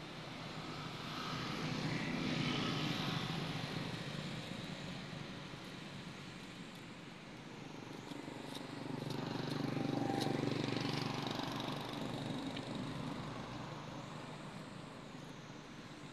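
Low outdoor rumble that swells up and fades away twice, a few seconds each time, with a few faint clicks near the middle.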